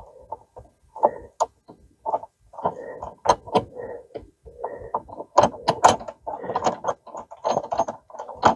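Combination wrench working a bolt and nut on a plastic A-arm guard, making irregular metallic clicking and rattling.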